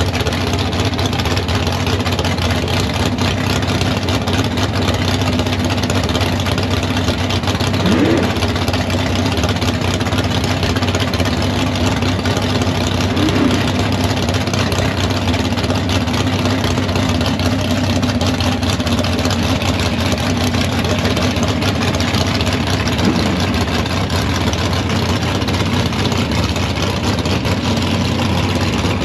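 Engine idling steadily under a constant din of background noise, with no revving up or launch.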